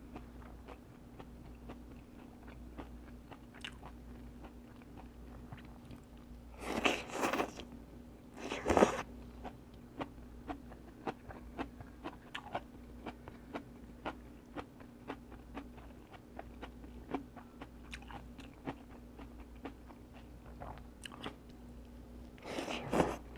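A person chewing and crunching fried Vietnamese spring rolls (chả giò) close to the microphone, with small mouth clicks all the way through and louder crunches about seven and nine seconds in and again near the end.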